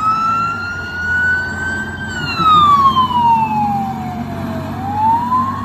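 Police siren wailing slowly over a low steady rumble. The pitch rises for about two seconds, falls for about two and a half seconds, then starts rising again near the end.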